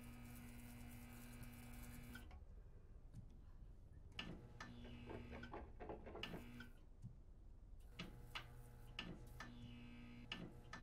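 Faint electrical buzz of a flickering fluorescent ceiling light with sharp clicks. The buzz cuts off about two seconds in, then comes back twice for shorter spells as the light goes off and on.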